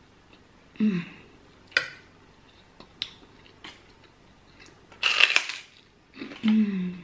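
Loud crunch of a bite into a crisp white kerupuk cracker about five seconds in, followed by a hummed 'mmm' of relish; a shorter hum near the start and a few light clicks of cutlery on the plate.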